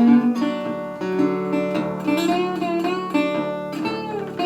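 Old National resonator guitar fingerpicked with finger picks, playing a solo instrumental intro, with some notes bending in pitch.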